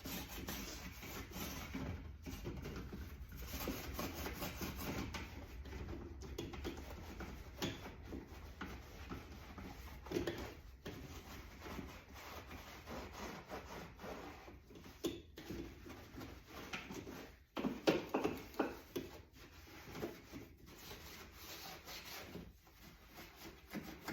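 Hand scrubbing inside a dishwasher: a scrubber pad worked back and forth against the interior in quick, uneven rubbing strokes, with a few louder strokes along the way.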